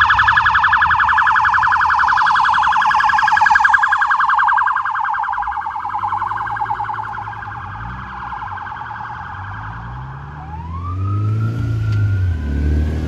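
Electronic siren on a BC Ambulance Service Dodge Durango paramedic unit sounding a rapid yelp, loud at first and fading after about four and a half seconds as the vehicle moves away. About ten seconds in, a siren starts a slow rising wail, over the sound of vehicle engines accelerating.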